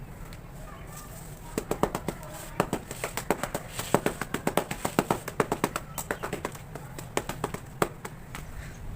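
Quick, sharp tapping on hardened cement cakes, about five taps a second, starting about a second and a half in and stopping near the end.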